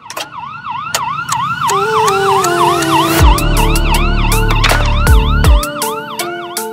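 Siren yelping in fast rising-and-falling sweeps, about three a second, as a sound effect in an intro jingle with held synth notes. Deep booming bass hits drop in pitch about three seconds in and twice more around five seconds.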